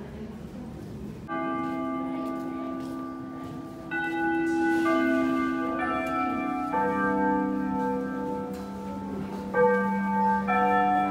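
Slow background music of sustained bell-like notes, starting about a second in and building, with new notes entering every second or two.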